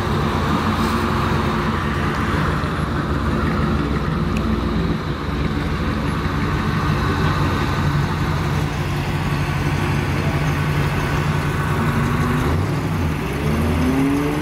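Classic car engines running as the cars drive slowly past, a steady low engine hum with engine speed rising briefly near the end.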